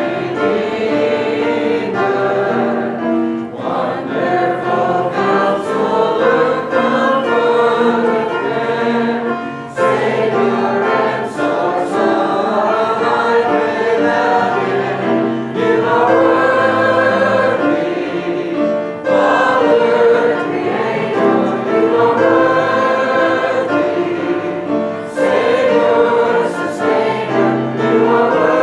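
Church choir singing a hymn, men's and women's voices together, with the worship leader singing along.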